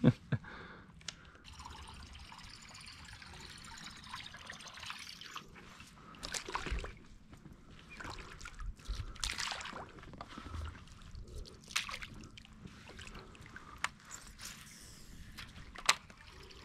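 Water trickling and lapping around a fishing kayak, with a few small splashes and scattered sharp clicks and knocks, the loudest near the start.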